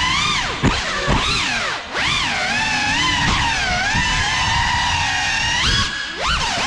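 Whine of an FPV quadcopter's electric motors and propellers, its pitch swooping up and down continuously as the throttle changes, with a low rumble of prop wash underneath.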